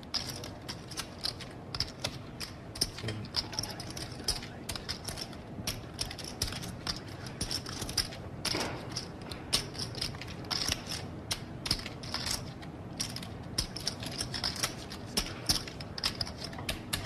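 Clay poker chips clicking against each other as they are handled at the table, a busy, irregular stream of short clicks.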